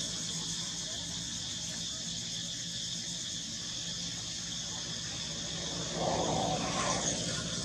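Steady high-pitched insect buzz with a low steady hum underneath, and a brief louder noise about six seconds in.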